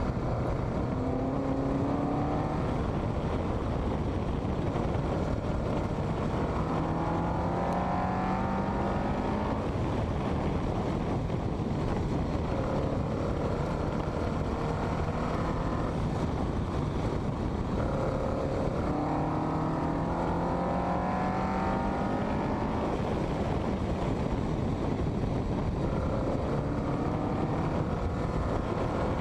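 Westfield kit car's engine accelerating hard on track, its pitch rising repeatedly as it runs up through the revs and gears, over steady wind and road noise.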